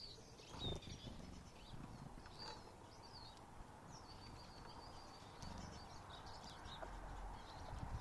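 Small songbirds chirping and twittering, with short high calls throughout and one longer, steady high trill about halfway through, over faint low knocks. A soft rushing noise builds in the second half.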